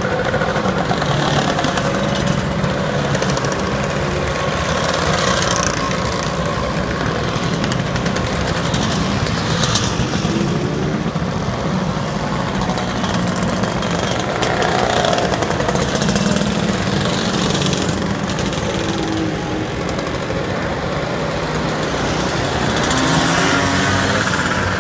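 A steady stream of Vespa and Lambretta scooters riding past, many small engines running together, with single scooters rising and falling in pitch as they go by.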